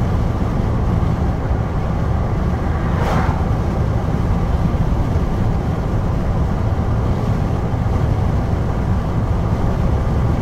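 Steady low road and engine rumble inside a vehicle's cab while driving on a highway, with a brief whoosh about three seconds in.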